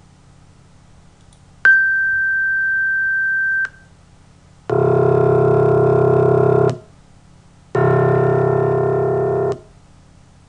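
A single steady pure tone, about two seconds long, switching on and off with a click, followed by two low, dense, organ-like chords of many steady pure tones, each lasting about two seconds with a short gap between them. This is a computer-generated sum of pure-tone partials sampled from the line spectrum of a piano's C1 note, built up to imitate that note.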